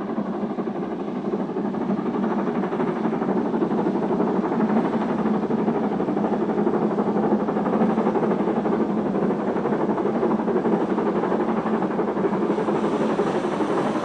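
LNER Gresley K4 three-cylinder 2-6-0 steam locomotive working a train, its exhaust beating steadily. It grows louder over the first couple of seconds as it draws nearer.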